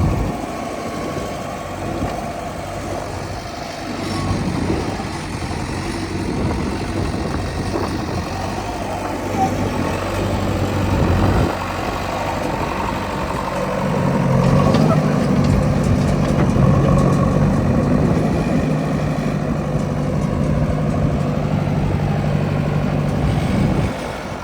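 Heavy diesel machinery engine running steadily. From about halfway through, a stronger, steady engine note sets in, typical of the engine working harder.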